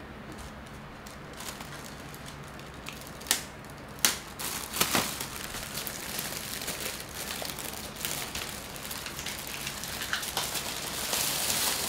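Thin plastic carrier bag rustling and crinkling as it is handed over and opened, with sharp clicks and knocks about three and four seconds in. The crinkling grows busier near the end.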